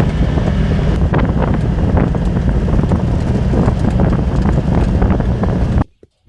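A vehicle engine running with rattles and knocks and wind buffeting the microphone, cutting off suddenly near the end.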